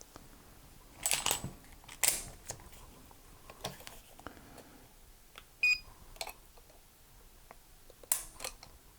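A Lyman digital trigger pull gauge gives one short, high beep a little past halfway through, the loudest sound here, as it registers a reading. Around it come several light clicks and clatters from handling the gauge and dry-firing the Ruger Security-380 pistol.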